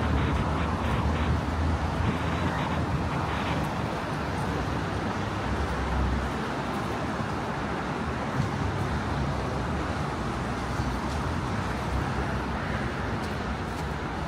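Steady city road traffic: cars passing on a busy avenue. A heavier low rumble during the first six seconds eases after that, as a closer vehicle goes by.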